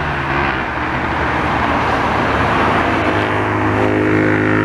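Road traffic: a motor vehicle passing, then from about three seconds in a steady engine drone.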